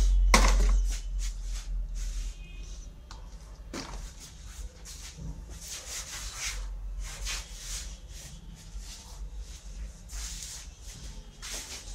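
Spring-loaded desoldering pump firing: its plunger snaps home with a sharp click about half a second in, followed by a fainter knock near four seconds. Then rubbing and handling noise over a steady low hum.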